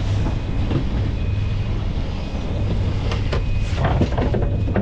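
Steady low rumble of the sailboat under way: engine running in gear, with wind and water noise. A few short clicks and knocks come about three to four seconds in, as the lure is worked free of the tuna.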